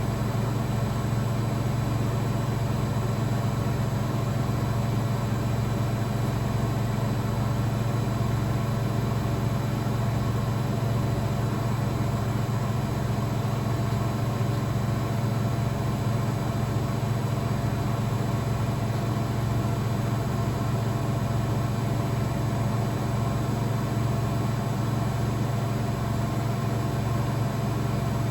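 Blomberg WAF 7442 SL washing machine spinning: a steady motor-and-drum drone with a regular low throb.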